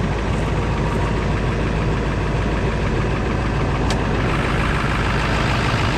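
Ford 7.3 L Power Stroke turbo-diesel V8 idling steadily shortly after a cold start, with a small hole in the exhaust. A single sharp click about four seconds in.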